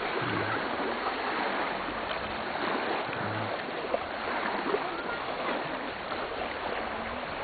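Small waves washing steadily onto a lake shore, an even rushing water noise.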